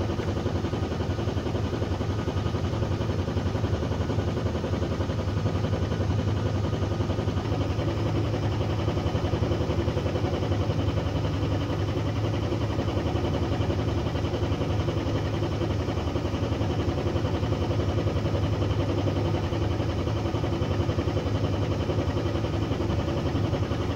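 An engine aboard a fishing boat running steadily at an unchanging speed, a low even hum with no let-up.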